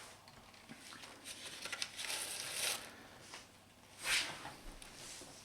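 Kindling and wood being handled and laid into a wood stove's firebox: soft rustling and scraping with a few light knocks, a longer swish in the middle and another near the end.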